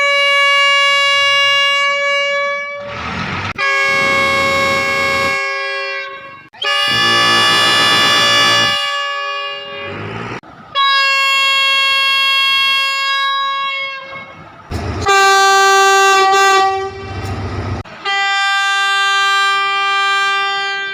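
Thai railway locomotive air horns sounding about six long blasts in a row, each a chord of several steady notes, with train rumble between some of the blasts.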